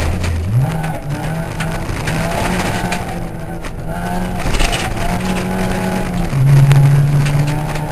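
Ford Puma rally car's engine heard from inside the cabin, driven hard on a gravel stage. The revs dip sharply just after the start, climb back within a second, then hold high with small rises and falls, loudest near the end. Gravel rattles under the car.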